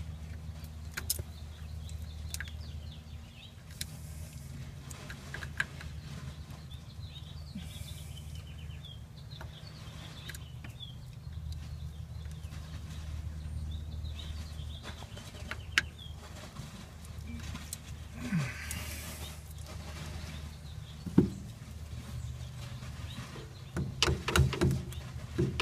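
Scattered light metal clicks and knocks from the shifter parts being worked into place while its pins are started straight, over a steady low hum, with occasional bird chirps.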